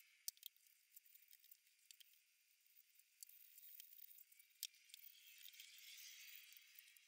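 Near silence, with a few faint light clicks and soft rubbing: hands setting glued wooden plugs into holes in Douglas fir and brushing fingers over the sawdust-covered surface. The rubbing grows a little louder toward the end.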